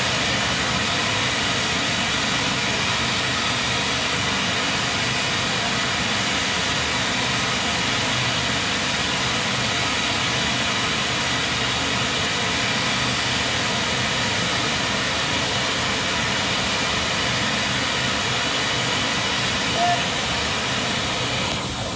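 Steady loud rushing roar with a faint hum underneath, unchanging throughout, like large machinery running.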